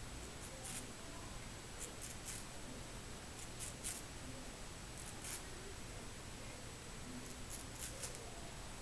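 A hair-shaping razor slicing through short, straight hair: faint, brief, dry rasps in small clusters of two or three, each cluster a second or two after the last.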